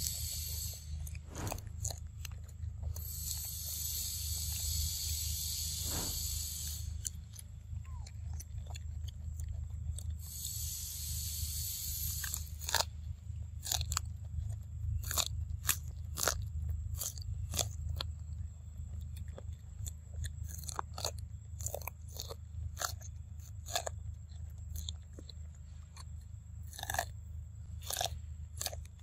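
A macaque chewing corn kernels close to the microphone: repeated sharp crunches and clicking bites. A high hiss comes in twice early on, once for about four seconds and again for about two.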